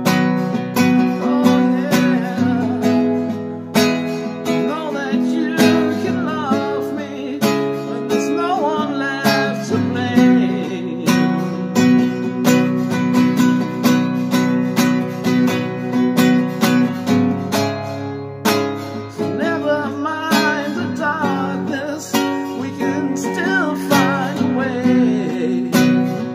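Nylon-string classical guitar strummed in a steady run of chords. At times a wordless vocal melody wavers over the strumming.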